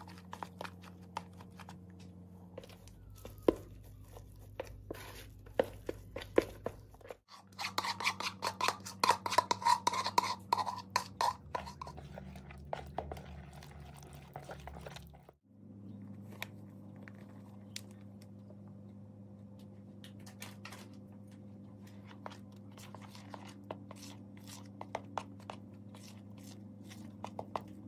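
Hands and a whisk mixing flour and liquid batter in a plastic bowl: scattered clicks and taps, with a run of fast whisk strokes clicking against the bowl from about 8 to 12 seconds in. A steady low hum runs underneath.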